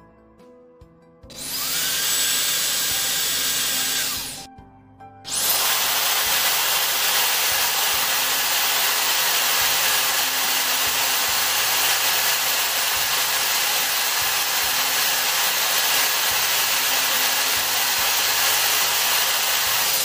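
JRL Forte Pro hair dryer's motor and airflow starting with a brief rising whine, running loud for about three seconds and stopping. After about a second it starts again and runs steadily for about fifteen seconds: the motor turbine spinning in reverse on its auto-clean cycle to blow particles out of the filter.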